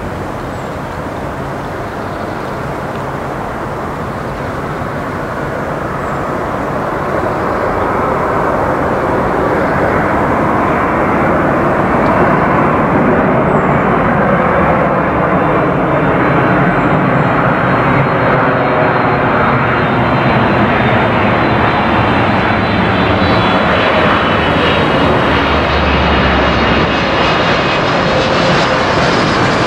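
Jet airliner on approach to land, its engine noise swelling louder over several seconds and then holding steady, with a high engine whine coming in during the second half.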